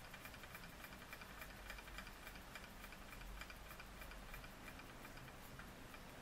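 Linemar J-5322 toy vertical steam engine running, giving a faint, fast, regular ticking that grows fainter near the end. It is fired by a solid-fuel tablet that gives only a tiny flame.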